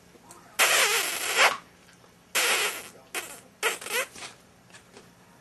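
Border Collie puppy stirring in a wire crate, making four rasping bursts of noise, the first and longest lasting about a second.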